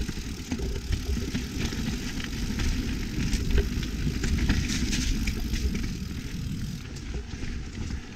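YT Capra mountain bike being ridden on a dirt trail: a steady rumble of wind and tyres at the camera, with scattered rattling clicks from the chain and frame over rough ground, getting quieter over the last two seconds.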